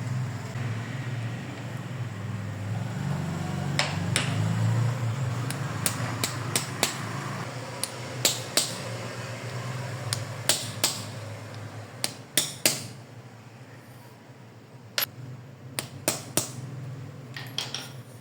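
Irregular sharp clicks and taps of small hand tools and parts being handled, over a steady low hum.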